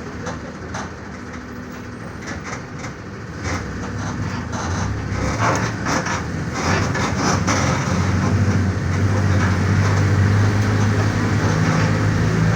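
Mercedes-Benz OF-1418 bus's diesel engine running on the move, getting louder from about a third of the way in as it pulls harder, then holding a steady drone. Clicks and knocks from the bus body rattle through the first half.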